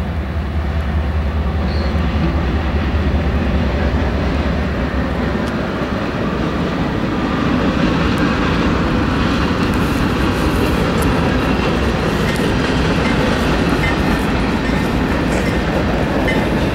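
Diesel locomotives of a CSX freight train passing close by. At first a deep, steady engine drone, then, as the units come alongside, a denser rumble of engines and wheels on the rails.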